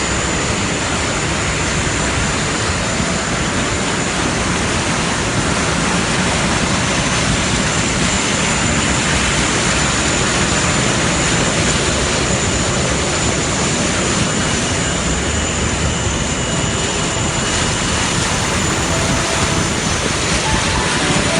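Loud, steady roar of rushing floodwater that holds unchanged throughout.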